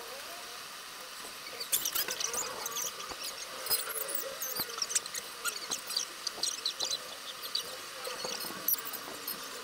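Rapid, high-pitched chirps and squeaks, starting about two seconds in, over a faint steady background.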